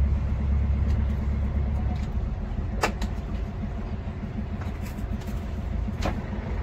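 A boat engine runs steadily with a low rumble and an even pulse. Two short sharp clicks sound a few seconds apart, about three and six seconds in.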